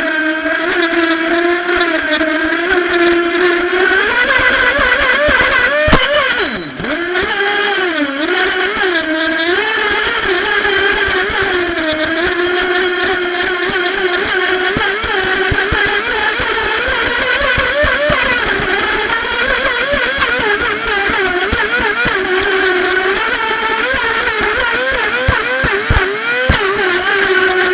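Feilun FT011 R/C boat's brushless electric motor running at speed, a steady whine whose pitch wavers throughout and dips briefly about six to seven seconds in, with water spray hissing against the onboard camera.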